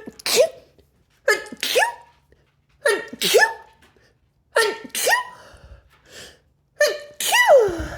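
A person sneezing five times in a rapid fit, about one sneeze every one and a half seconds. Each sneeze is a sharp voiced catch of breath and then a loud burst; the last is the longest and trails off in a falling voice. The fit follows the remark that the cooking spices are strong, so the spices are the likely trigger.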